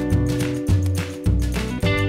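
Background music: sustained pitched notes over a bass line that changes in a steady rhythm.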